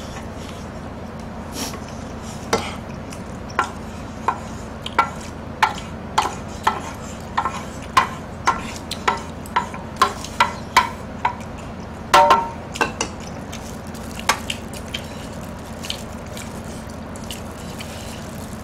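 Chopsticks scraping and tapping against a stainless steel tray while gathering leftover noodles: a run of sharp clicks, about one or two a second, with one louder clatter about twelve seconds in. A steady low hum lies under it.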